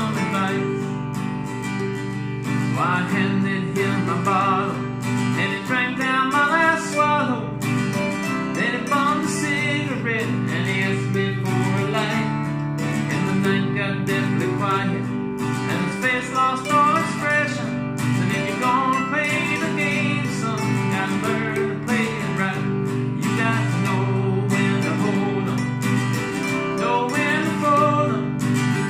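Acoustic guitar strummed and a mandolin picked together in a country tune, with a man singing along.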